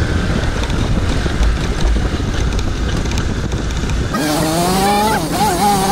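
Motorcycle ridden over a rough dirt trail, heard on a handlebar- or helmet-mounted action camera as a steady low rumble of engine and wind on the microphone. About four seconds in the sound changes abruptly to a pitched tone with several overtones that rises and then wavers.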